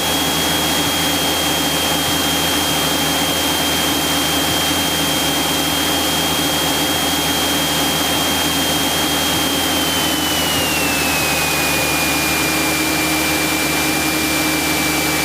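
Cessna 172SP cockpit noise as heard through the headset intercom: the four-cylinder Lycoming engine and propeller running with a steady rush of air, under a thin high whine that slides down in pitch about ten seconds in.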